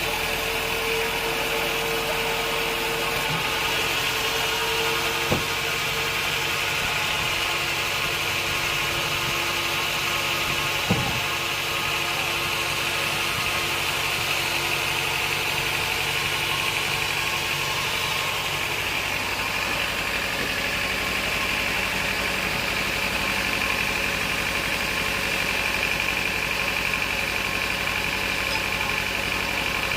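Sawmill machinery running steadily, a constant mechanical drone with a higher hiss over it. Two sharp knocks come about five and eleven seconds in, and the drone's tone changes a little about two-thirds through.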